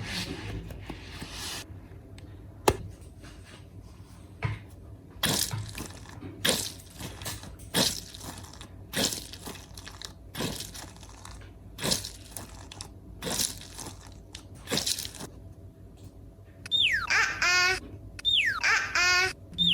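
Slime being squeezed and squished by hand, a wet squelching crackle repeated about every second and a half. Near the end come two falling, warbling whistle sound effects.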